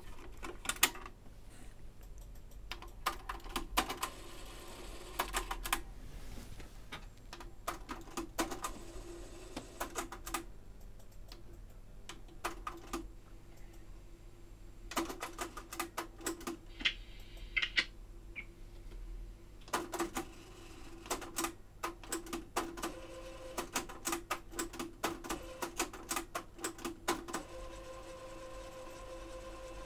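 Pioneer CT-P720WR cassette deck's transport mechanism clicking and clunking again and again as its buttons are pressed, in irregular clusters over a steady hum. The mechanism will not go into fast forward or rewind: a lever arm is not quite latching over its clip.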